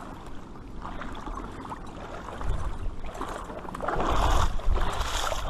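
River water splashing and rushing at the shore, getting louder about four seconds in.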